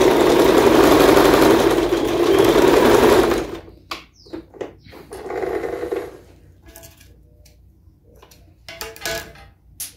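An Elgin domestic sewing machine stitching a wide zigzag through denim. It runs steadily for about three and a half seconds, then stops. This is a test seam at the widest zigzag setting to check for skipped stitches. Afterwards come soft rustling as the cloth is handled and a few sharp snips near the end as the thread is cut with scissors.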